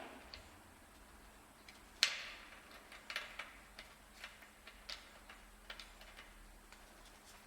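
Scattered light metallic clicks and taps of hand tools being handled at a car's wheel, with one sharper knock about two seconds in.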